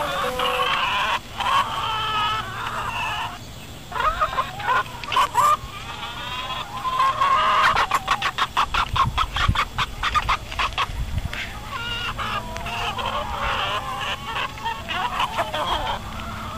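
Domestic hens clucking and calling: drawn-out squawking calls that rise and fall in pitch. About eight seconds in comes a fast run of clucks, some four or five a second, lasting about three seconds.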